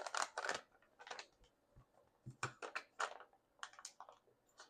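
A small plastic packet from a toy slime kit being handled and opened by hand: short crinkling and clicking sounds in several separate clusters.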